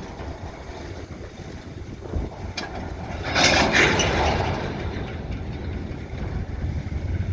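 Freight train of covered boxcars rolling slowly past, a steady low rumble of wheels on the track. About three seconds in, a brief rushing hiss swells for about a second and fades.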